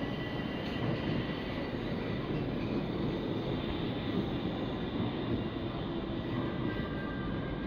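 Stockholm metro train pulling out of the platform and moving away down the track: a steady rail and running noise with thin high tones over it, a few more tones coming in near the end.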